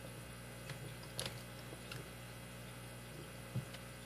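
A few faint, sparse clicks and taps of a lock pick and tension wrench working in the keyway of a Master Lock 160 padlock, over a steady low hum.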